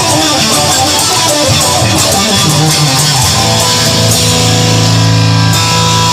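Instrumental stretch of a rock song led by guitar, with sustained low bass notes in its second half and no singing.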